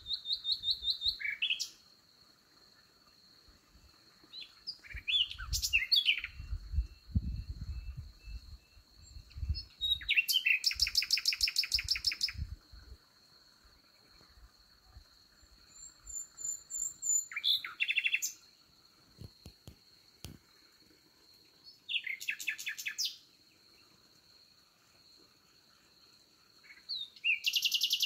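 Nightingale singing in short phrases of fast repeated notes and trills, about six of them, separated by pauses of a few seconds. A steady high-pitched insect trill runs underneath.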